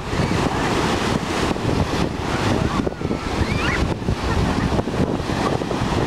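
Sea surf breaking and washing up a sandy shore, a steady dense rush of foaming water, with wind buffeting the microphone in a low rumble.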